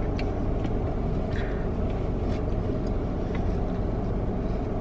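Steady low rumble of a car, heard from inside the cabin, with a few faint light clicks.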